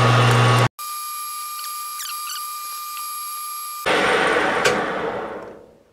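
A 12x36 metal lathe running with its chuck spinning, a steady mechanical noise with a low hum. It is broken by about three seconds of a quieter, steady high-pitched whine with faint squeaks. Then the lathe noise returns and winds down as the spindle coasts to a stop.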